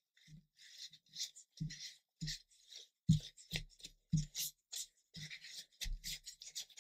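Tissue rubbing and dabbing along the freshly glued joints of laser-cut wooden parts, wiping away excess glue: a run of short, irregular scuffing strokes with soft knocks of the parts on the cutting mat.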